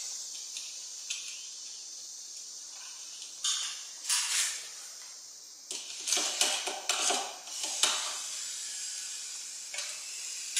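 Screwdriver and wire terminal working at a battery's terminal screw: irregular light metallic clicks and scrapes in short bursts, as the negative lead is fastened down.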